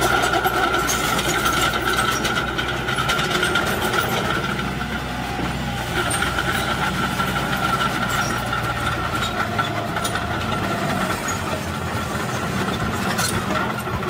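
Diesel engines of a small crawler bulldozer and a dump truck running steadily under work, with a steady high whine over the engine note.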